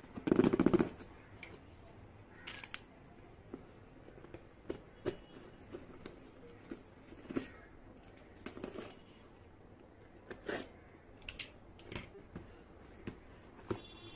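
Small plastic toy kitchen pieces being handled: a louder handling noise in the first second, then scattered sharp clicks and taps, roughly one every second.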